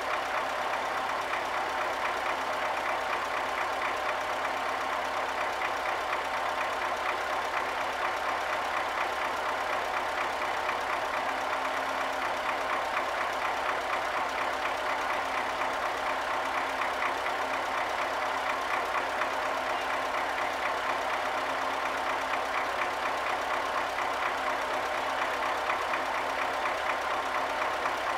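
Tractor diesel engine idling steadily, an even, unchanging run with a fast regular pulse.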